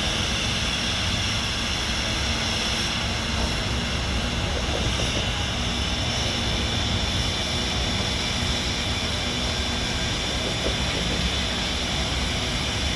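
Polson Logging Co. No. 2 steam locomotive standing still and venting steam in a loud, steady hiss that does not let up.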